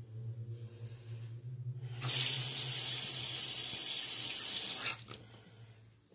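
Bathroom sink tap turned on and running at full flow for about three seconds, starting suddenly about two seconds in and cutting off just before five seconds.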